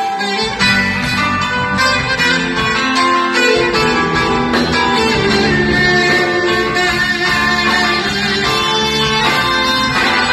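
Live folk music: a clarinet playing a melody over a plucked-string accompaniment.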